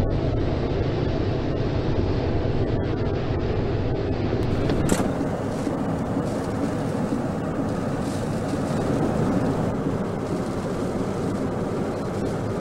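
Hurricane wind buffeting the camcorder microphone: a steady rushing noise with a heavy low rumble. About five seconds in the sound changes abruptly, and storm surf breaking over a rock jetty joins the wind.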